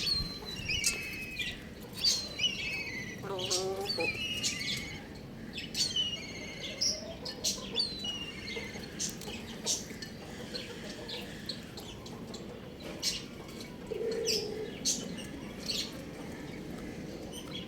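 Young chickens peeping and chirping in short, high, falling notes, dense for the first half and sparser later. A lower call comes about three and a half seconds in, and sharp clicks are scattered throughout.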